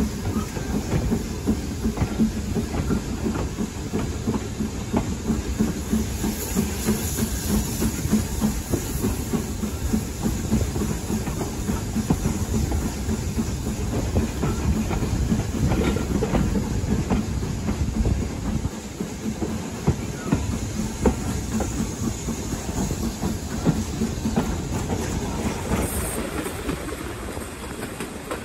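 A passenger train running along the line, heard from an open carriage window: a steady rumble of wheels on the rails with irregular clicks over the rail joints and a rushing hiss.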